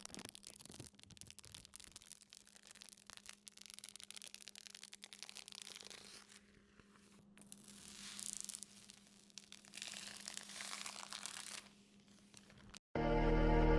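Faint rustling, scraping and small clicks from hands handling computer parts and cables, in irregular bursts with short pauses, over a low steady hum. Background music starts up near the end.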